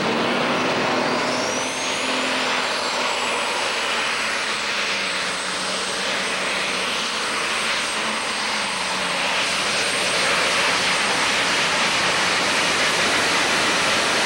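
Super stock pulling tractor, a green John Deere, running its turbocharged engine flat out under load while dragging a weight-transfer sled, a loud steady engine noise. A high turbo whistle rises in pitch about a second in and then holds steady.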